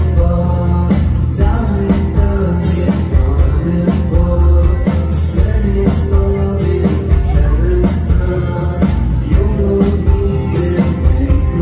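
A rock band playing live: electric bass, keyboards, guitar and a drum kit with cymbal hits, and a male voice singing over it.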